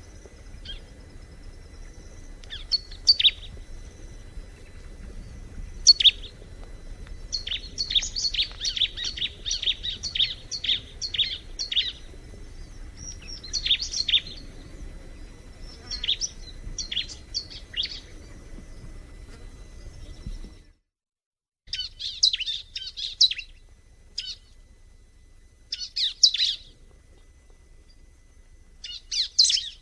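Ciblek (prinia) singing: sharp, high chirps in short bursts, with a fast run of repeated notes a few seconds in. About two-thirds through the recording drops out for a moment, then the bird resumes with more bursts of chirps.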